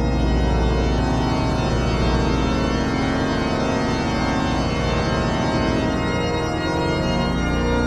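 Background music: an organ holding sustained chords in a dark, gothic style.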